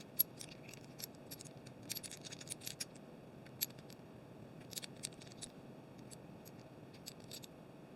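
Faint, scattered small clicks and ticks from handling a small aluminium-and-stainless-steel camera monitor mount head, with bunches of them about two and five seconds in.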